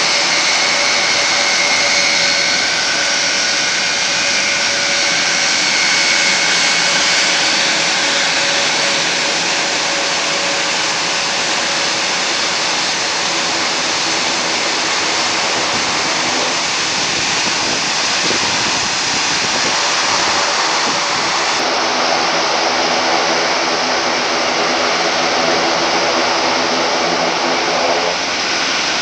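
Airbus A400M's four Europrop TP400-D6 turboprop engines running as the aircraft taxis, a loud, steady whine over the drone of its eight-bladed propellers.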